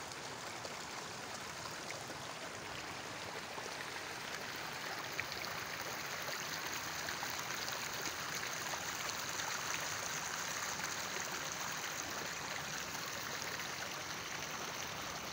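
Shallow, stony river flowing steadily, a continuous rush of water that gets a little louder and brighter about halfway through.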